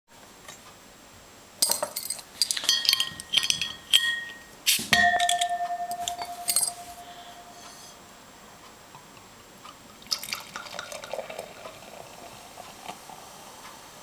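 A metal bottle opener clicking and scraping on a beer bottle's crown cap, then a hard metal clatter onto the table that rings and rattles for about two seconds. From about ten seconds in, beer glugs and splashes into a glass.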